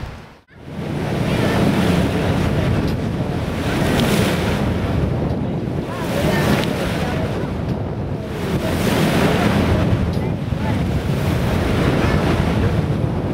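Wind buffeting the microphone on a moving boat, over a steady rush of water; the sound drops out for a moment about half a second in.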